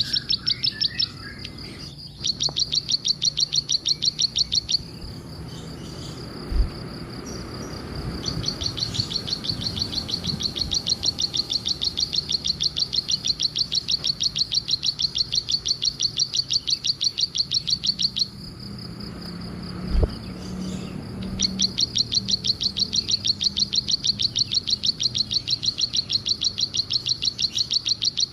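Bar-winged prinia (ciblek) calling in long runs of rapid, high chirps, each run lasting several seconds, with short breaks between them. Two brief low thumps, about a third of the way in and again past the middle.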